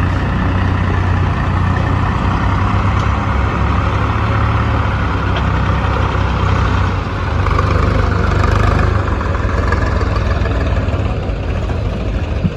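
Heavy diesel engine of the digging and loading machinery running steadily, its load rising for a couple of seconds just past the middle.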